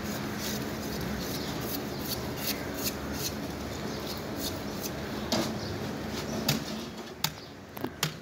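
A large knife cutting and peeling the flesh of a shark carcass: irregular small clicks and scrapes, with a few sharper knocks in the last three seconds, over a steady low background hum.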